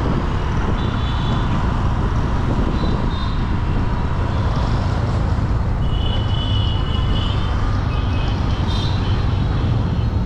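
Road traffic: a steady low rumble of passing vehicles, with several brief high-pitched tones about a second in, around three seconds, for a second or so from about six seconds, and again near the end.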